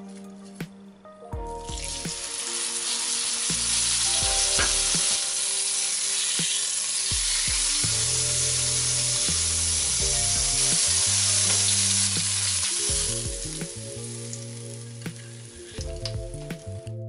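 Pork neck roast searing in hot oil in a pot: a loud, steady sizzle that starts about a second and a half in, as the meat goes into the oil, and dies down near the end. Background music plays throughout.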